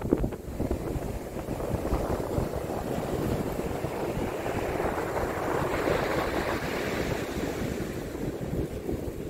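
North Sea surf breaking and washing up a sandy beach, with wind rumbling on the microphone. The hiss of the surf swells about halfway through.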